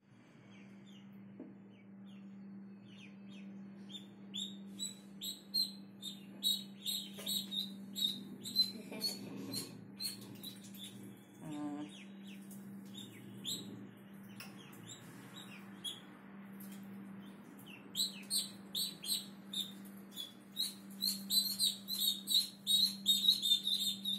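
White Pekin ducklings peeping, many short high calls in quick runs that grow denser and louder near the end, over a steady low hum.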